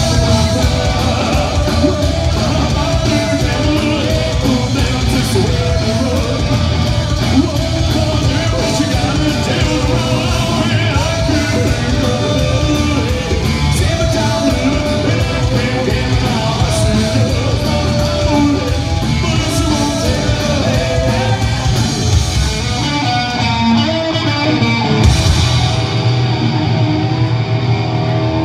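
Live psychobilly band playing loudly: sung vocals over electric guitar, upright bass and drums.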